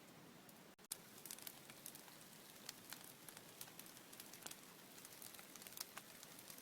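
Large wood bonfire burning, crackling with many sharp irregular pops from about a second in.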